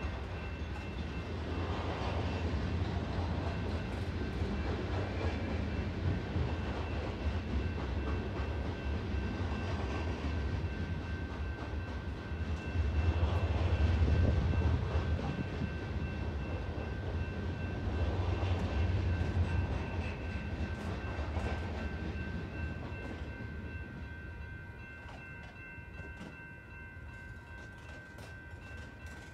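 Freight train rolling through a grade crossing: a low rumble of cars and wheels that swells and ebbs, then fades away over the last few seconds as the train clears. Over it the crossing's warning bell keeps ringing steadily.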